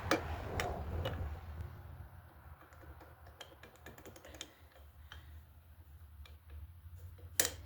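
Light, scattered metal clicks and taps from small engine parts being handled during a two-stroke motorbike engine teardown, with one sharper knock near the end.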